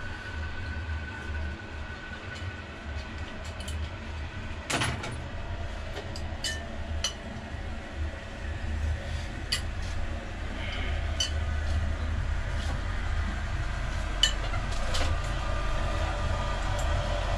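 Scattered sharp metallic clicks and taps of hand tools on the bolts at the engine's flywheel and drive plate, with one louder knock about five seconds in. Under them runs a steady low rumble that grows a little louder toward the end.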